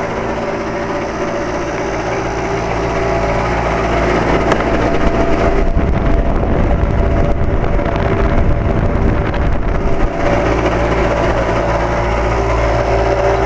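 2007 Carrier 2.5-ton central air-conditioner condensing unit running with a steady, layered hum and an odd noise, which the owner believes comes from the outdoor fan motor. For a few seconds in the middle it grows rougher and a little louder.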